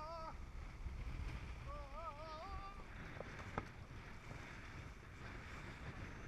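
Strong wind rumbling on the microphone over the rush of water around a small sailing dinghy. Two short warbling tones sound in the first half, and two sharp knocks come a little past halfway.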